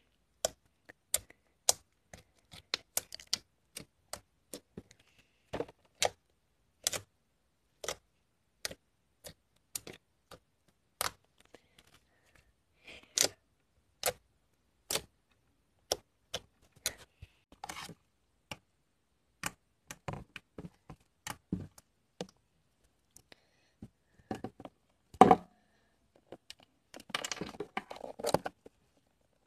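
White foamy slime being pressed and squished by hand, giving sharp clicking pops of trapped air about once or twice a second. Late on there is one louder squelch, then a quick crackling run of pops.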